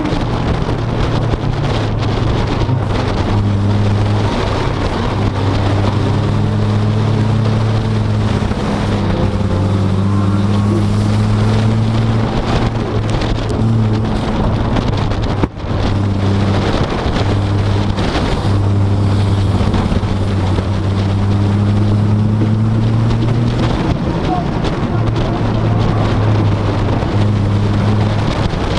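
Vehicle engine and road noise heard from inside the cabin while driving: a steady low drone whose pitch steps up and down every few seconds as the engine speed changes. It drops out for an instant about halfway through.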